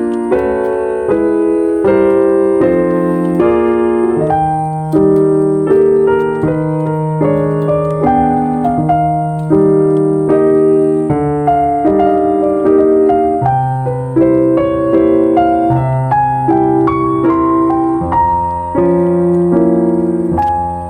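Background piano music: a calm run of single notes over held low notes.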